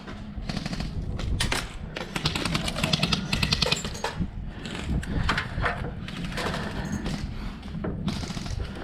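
Airsoft electric guns firing rapid full-auto bursts, a fast string of sharp clicking shots, densest about two to four seconds in.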